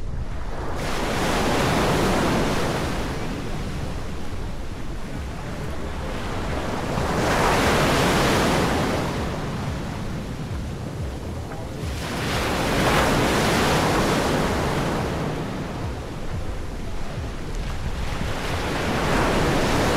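Surf breaking on a beach: a rushing wash that swells and fades four times, about every five to six seconds. A steady low wind rumble on the microphone sits underneath.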